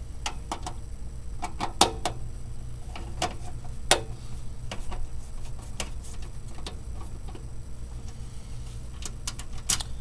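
A screwdriver backing out the single screw that holds a PCI slot cover on a computer case's steel back panel: scattered small metallic clicks and ticks over a steady low hum, with sharper clicks about two seconds in, about four seconds in, and near the end.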